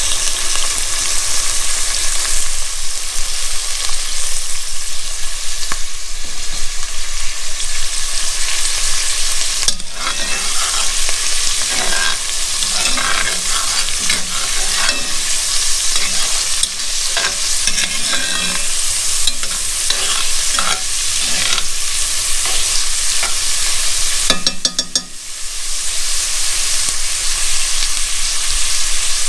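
Diced onions sizzling in oil in a cast-iron Dutch oven. From about ten seconds in, a metal spoon scrapes and clinks against the pot as the onions are stirred, stopping shortly before the end.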